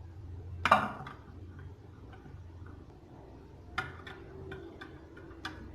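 A spoon stirring honey into a cup of hot kahwa, clinking against the cup: one sharp clink under a second in, then a few lighter, irregular clinks in the second half.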